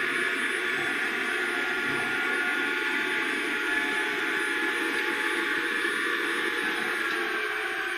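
70mm 12-blade electric ducted fan in an RC foam jet running steadily at part throttle: an even whine with a rushing airflow hiss.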